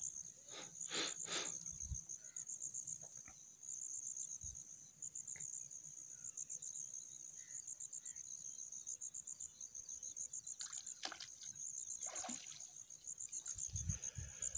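Insects chirping in a steady, high-pitched pulsing trill, with a few brief splashes of water: three in quick succession about a second in and a couple more near the end.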